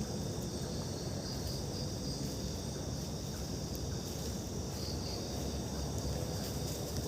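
Crickets or similar insects chirring steadily in high-pitched bands, over a low, even background rumble.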